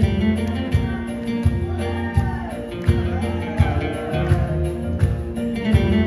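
Song with guitar and a steady bass beat pulsing about every 0.7 s. A voice glides through a sung phrase in the middle.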